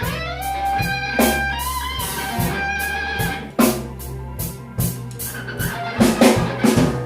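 Live blues band playing a slow blues: an electric guitar answers the vocal with bent notes over drum kit and bass guitar.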